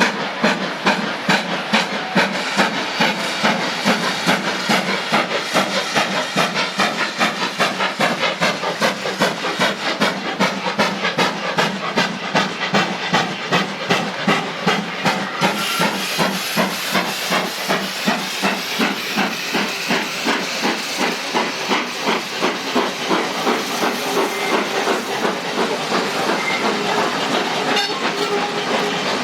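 Two-cylinder GWR Manor Class steam locomotive pulling away under load, its exhaust chuffing in a steady, even beat with steam hiss. The beats blur together near the end.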